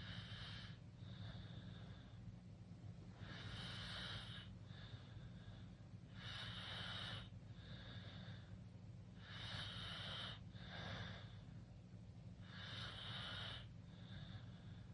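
A sleeping teenager snoring through a wide-open mouth, in slow even breaths about every three seconds, each a louder breath followed by a softer one.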